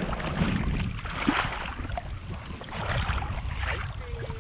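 Feet wading through shallow water over sand, with irregular splashes, and wind rumbling on the microphone.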